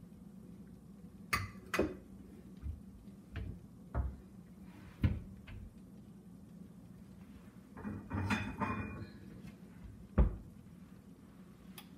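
Dishes and kitchenware knocking and clinking as they are handled: a string of separate knocks, a longer rattling clatter about eight seconds in, and one sharp knock soon after, the loudest. A low steady hum runs underneath.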